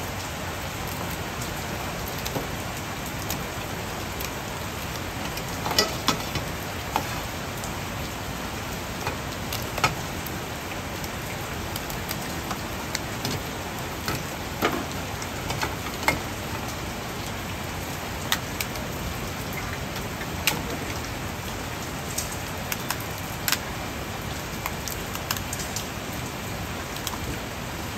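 Kitchen scissors snipping through a raw lobster's shell and the shell cracking as it is pulled apart by hand, heard as scattered sharp clicks and clanks on a steel tray over a steady hiss of background noise.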